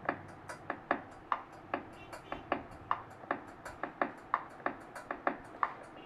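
Casio SA-78 portable keyboard playing a rhythm pattern reduced to light, evenly spaced ticks, about two and a half a second. The ticks come faster after about four seconds as the tempo is changed with the tempo button.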